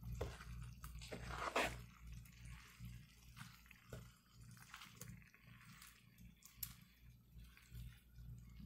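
A spatula stirring and scraping sizzling potatoes and vegetables in a hot pan: light scrapes and clicks over a faint sizzle, loudest about a second and a half in. A low steady hum lies underneath.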